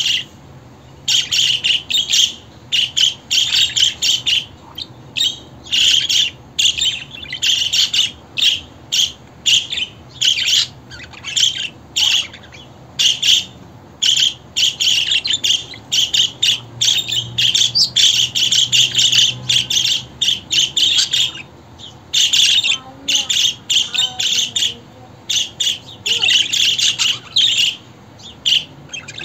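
Budgerigars chattering and chirping in rapid warbling bursts, broken by short pauses throughout.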